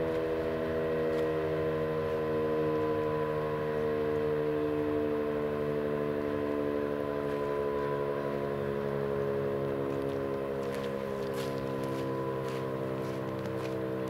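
Federal Signal Thunderbeam rotating outdoor warning siren sounding a steady tone at constant pitch during a siren test.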